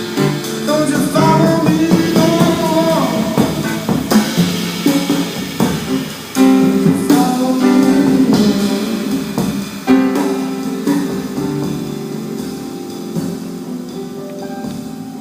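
Live band playing an instrumental passage of a song: guitar with drums. The playing eases off and gets quieter over the last few seconds.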